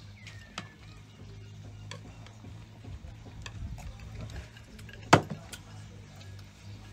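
Chopsticks clicking and tapping against ceramic plates and a bowl while picking up food, a scattering of light ticks with one sharp, louder tap about five seconds in, over a low steady hum.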